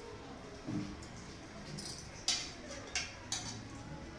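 A metal serving spoon knocking and clinking against aluminium cooking pots and a plate as food is dished up: a soft knock near the start, then three short, sharp clinks in the second half.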